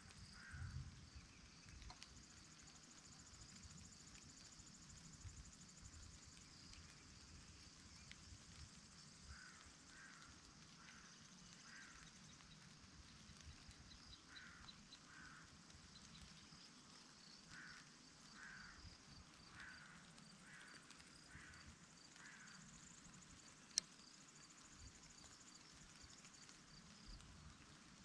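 Faint meadow ambience: a steady high chirring of insects in the grass, a bird calling in short notes repeated in little groups, and a low wind rumble. A single sharp click about four seconds before the end.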